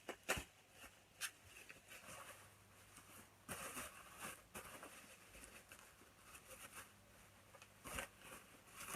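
Faint rustling and crinkling of packaging being handled and unwrapped, with a few sharp clicks and taps, the loudest shortly after the start and another near the end.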